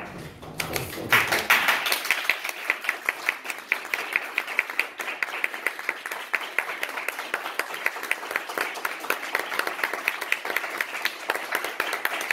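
A small audience applauding, each hand clap distinct, starting about half a second in and keeping up a steady patter.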